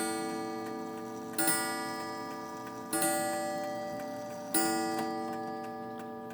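Seth Thomas Adamantine mantel clock striking the hour, with about three evenly spaced ringing strikes roughly a second and a half apart, each dying away slowly.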